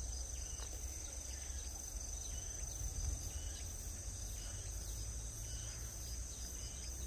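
Steady high-pitched chorus of trilling insects, with a low rumble underneath.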